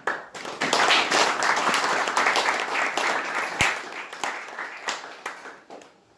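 Audience applauding: the clapping starts at once, is loudest over the first few seconds and dies away near the end.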